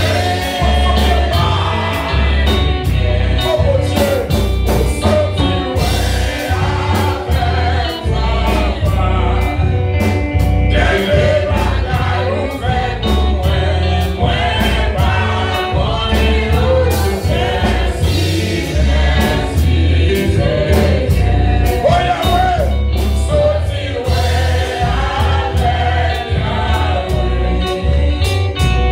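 Gospel praise music: a choir singing over a band with a heavy pulsing bass line and drums.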